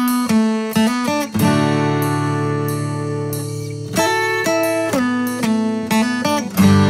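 Background music of plucked-string chords, each struck sharply and left ringing, with a fresh chord every second or so.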